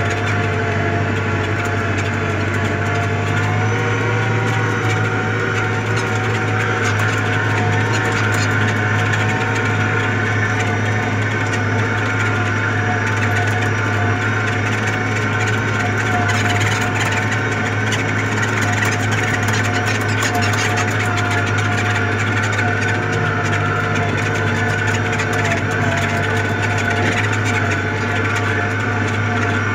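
Tractor engine running steadily under load while pulling a disc harrow through dry soil.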